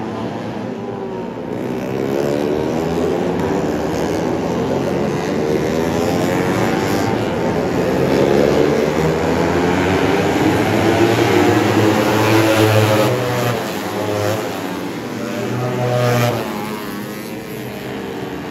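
A pack of 150cc four-stroke underbone race motorcycles passing, several engines revving up and down through the gears at once. They are loudest in the middle and fall away near the end.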